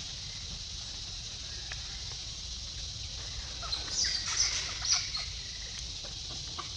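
A short run of high-pitched animal chirps or squeaks about four seconds in, over a steady high hiss.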